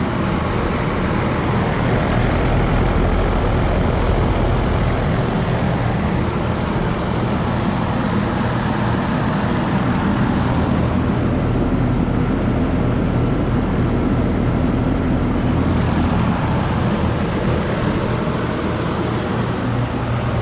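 American Standard central air conditioner's outdoor condensing unit running steadily, its compressor humming under the rush of the condenser fan. It is working under full load in 107°F heat.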